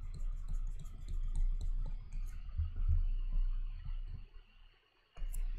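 A stylus clicking and tapping against a tablet screen in quick repeated strokes as an area is hatched in by hand. The clicks thin out and stop a little before the end.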